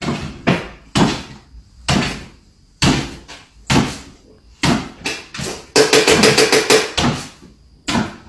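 A small dog's paws thumping on a wooden floor as it hops up and down on its hind legs: sharp knocks about once or twice a second, with a quick rapid run of them about six seconds in.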